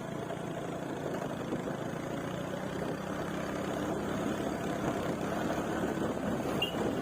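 Motorcycle engine running on the move, growing gradually louder.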